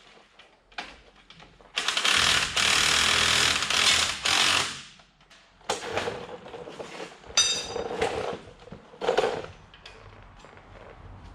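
Pneumatic impact wrench running in one burst of about three seconds, rattling fast, as the new front hub bearing assembly's bolts are run in. It is followed by scattered metal clanks and clinks of tools and parts, one of them ringing briefly.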